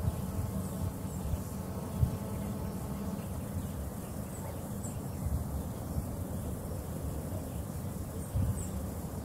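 Outdoor dawn ambience: a steady low rumble with a few soft low thumps, and faint short high-pitched chirps now and then.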